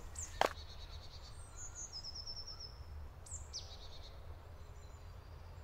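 Small songbirds calling in a forest: a rapid trill of repeated high notes about one and a half seconds in, then a few quick falling whistles, over a steady low rumble. One sharp tap sounds just after the start.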